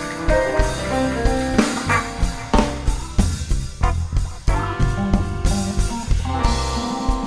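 Live band playing an instrumental passage with no singing: electric guitar, drum kit and a Hammond XK-2 organ holding chords.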